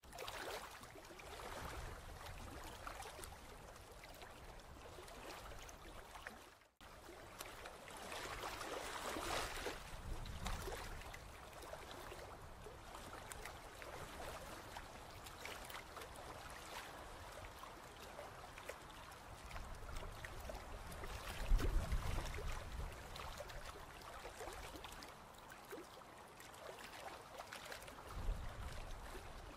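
River water flowing as a passenger tour boat passes, its wake washing through the water, with low rumbles that swell now and then, loudest about 22 seconds in. The sound drops out briefly about seven seconds in.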